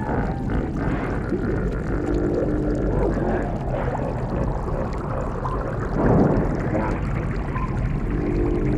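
Underwater ambience sound effect: a steady bubbling, watery rumble. A short pitched animal-like call comes about two seconds in and again near the end, and there is a louder surge about six seconds in.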